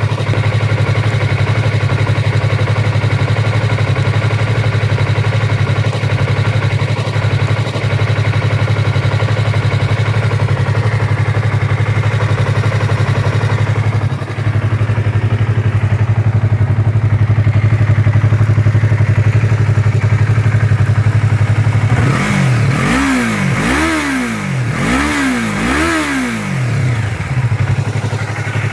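2015 Yamaha R3's 321 cc parallel-twin engine idling steadily through its stock exhaust, then blipped up three times in quick succession about 22 seconds in before dropping back to idle.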